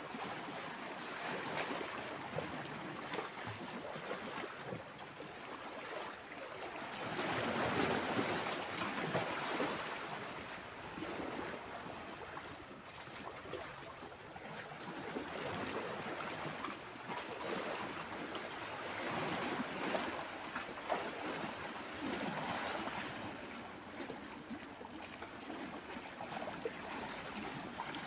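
Small sea waves washing in and splashing among shoreline boulders, coming in slow surges that rise and fall, the loudest about eight seconds in.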